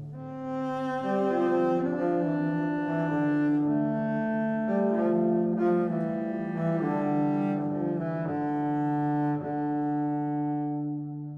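Slow background music of long, held low string notes, easing off near the end.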